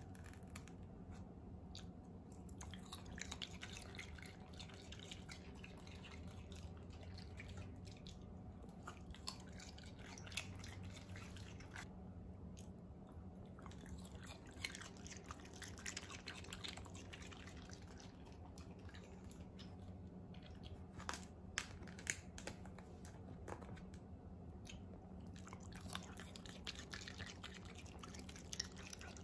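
A raccoon chewing grapes: wet smacking and crunching in many short irregular clicks, with water dripping as it washes them in a tub.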